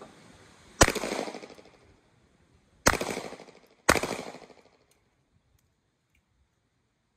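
Three pistol shots, the first about a second in and the next two about two seconds and then one second after it, each trailing off over about a second.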